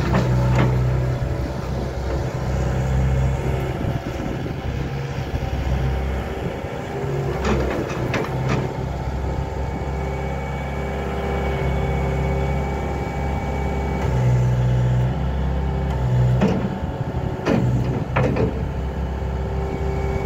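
2006 Bobcat S300 skid-steer loader's diesel engine running steadily as the machine manoeuvres, its note shifting briefly a few times. Several sharp knocks from the loader and attachment come through it, a pair about eight seconds in and a few more near the end.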